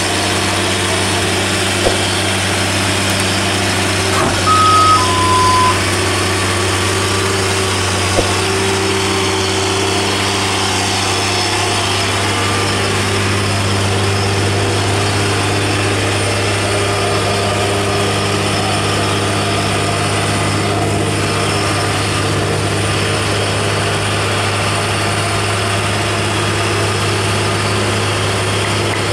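Diesel engine of a ten-wheel dump truck loaded with tens of tons of coal, running with a steady low hum as it pulls up a steep hairpin climb. About five seconds in, a two-note horn sounds briefly, a higher note then a lower one.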